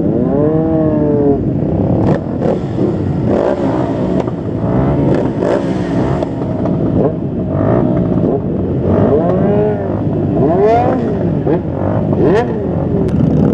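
Several motorcycle engines revving in a group ride, their notes repeatedly rising and falling and overlapping, with a few sharp pops scattered through.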